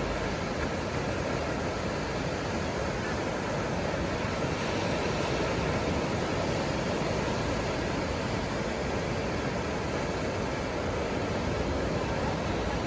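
Surf breaking and washing onto a beach, a steady rush of noise that swells a little about five seconds in.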